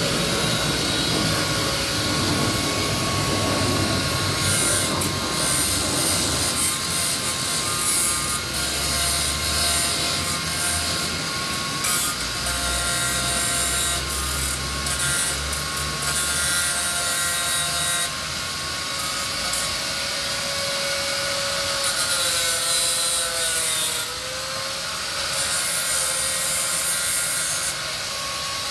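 Angle grinder running with a steady whine, its disc grinding down bolt heads to round them so they can't be unscrewed, in repeated bursts of harsh, high grinding noise. The motor's pitch dips briefly under load about three quarters of the way in.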